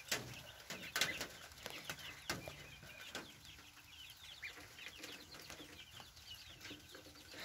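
Baby chicks and ducklings peeping: many short, high, falling cheeps in a continuous chorus, faint, with a few sharp taps scattered among them.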